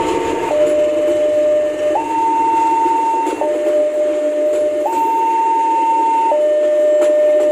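Level-crossing warning alarm sounding an electronic two-tone signal, switching between a low and a high tone about every one and a half seconds, over the steady rumble of a passenger train's coaches rolling past.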